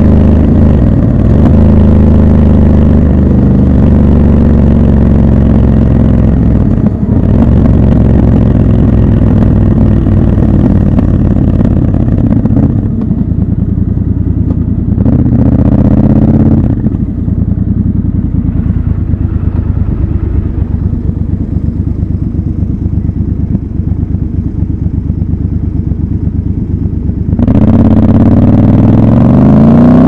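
Triumph Scrambler 1200 XC's parallel-twin engine running under way for the first dozen seconds, then dropping to a quieter, fast low idle while the motorcycle waits in traffic. Near the end the engine revs rise again as it pulls away.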